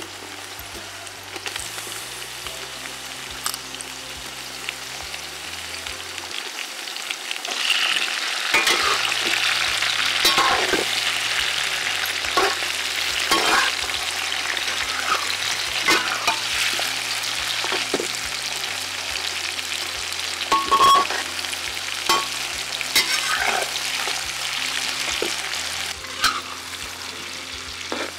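Sliced onions and capsicum sizzling in oil in a large metal kadai, getting louder about a quarter of the way in, while a metal spatula scrapes and clanks against the pan every second or two as they are stir-fried.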